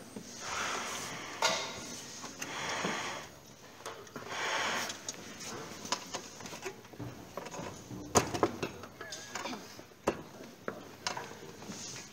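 Quiet room noise with scattered clicks and knocks, the sharpest about eight seconds in, over a few soft rustling swells; no music is playing.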